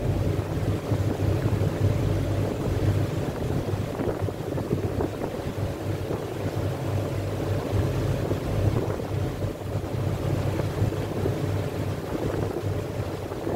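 Steady low drone of a river cruise boat's engine, with wind noise on the microphone.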